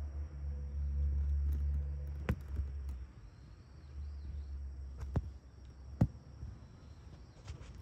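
Outdoor ambience: a low rumble that fades about three seconds in, a few sharp clicks, and a faint steady high trill of insects.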